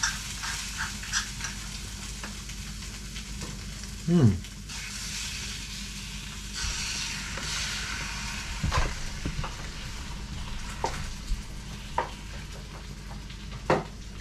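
Spam sizzling as it fries in a pan, a steady hiss with scattered clicks and knocks. A short falling voice-like sound about four seconds in is the loudest moment.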